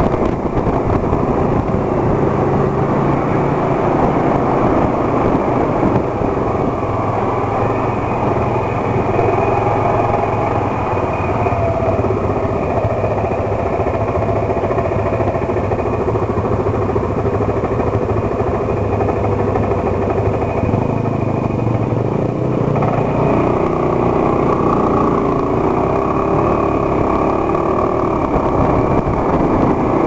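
Motorcycle engine running steadily at cruising speed with road noise, heard from on board the bike. The engine note changes about two-thirds of the way through.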